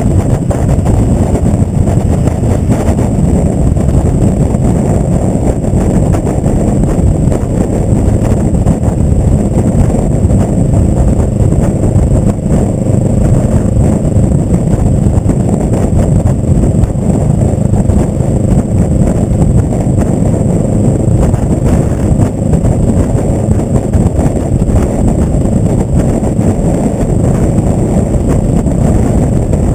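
Kawasaki ER-5's parallel-twin engine running through a short Delkevic Mini 8-inch slip-on exhaust while the bike is ridden, loud and steady, picked up close from the fuel tank.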